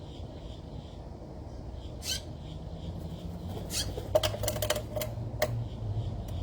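A few short, high, downward-sweeping calls of birds or a squirrel at a feeder, then a quick run of sharp clicks about four seconds in. A low rumble grows underneath toward the end.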